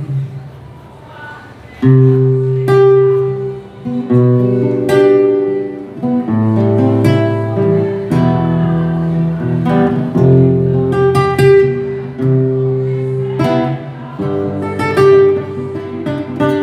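Live instrumental passage of Brazilian popular music led by acoustic guitar, with chords changing every second or two and held notes between them.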